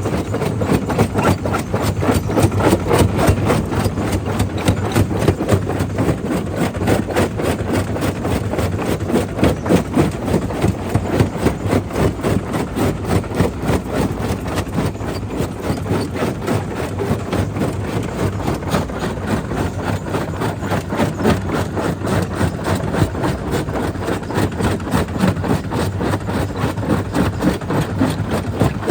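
Jaw crusher running and breaking black stone: a steady, loud machine rumble with rapid, uneven knocking of rock in the jaws.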